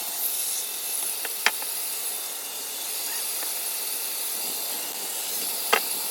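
Steady hiss from a woodworking machine cutting wood, with a sharp knock about a second and a half in and another near the end.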